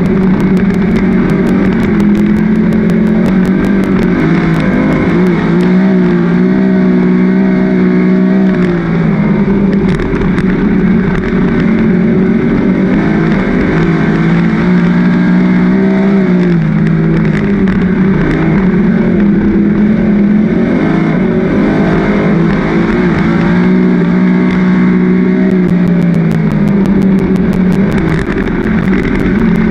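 Winged 410 sprint car's V8 engine at racing speed, heard from inside the cockpit: the engine note climbs and then drops away every several seconds as the car drives hard down the straights and lifts for the turns of the dirt oval.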